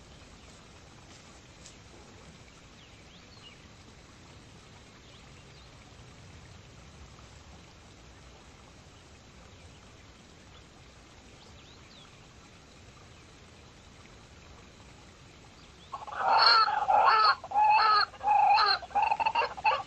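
Faint outdoor background, then near the end a pheasant suddenly breaks into loud, harsh, repeated squawking calls.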